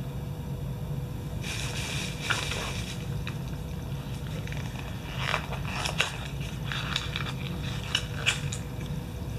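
Rustling and light clicks of small cosmetic packaging being handled and opened, coming in short patches over a low steady hum.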